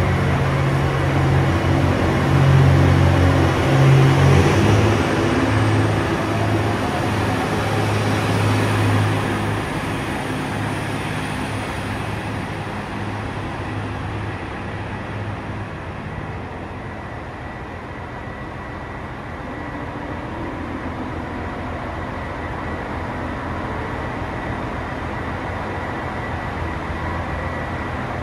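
JR Hokkaido H100 diesel-electric railcar pulling out, its diesel engine running hard under load. It is loud for about the first ten seconds, then fades steadily as the railcar moves away.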